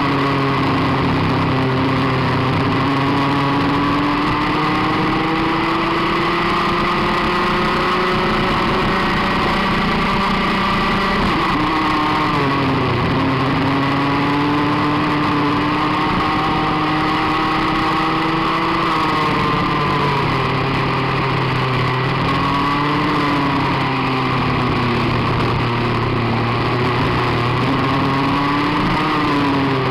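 Rotax Max 125cc single-cylinder two-stroke kart engine at full racing effort, heard from on board the kart. The revs climb steadily and drop off sharply several times, about twelve, twenty, twenty-four and twenty-nine seconds in.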